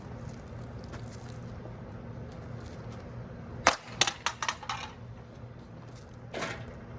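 A sharp knock about halfway through, followed at once by a quick run of five or so lighter clatters, then a short scraping rustle near the end, over a steady low hum.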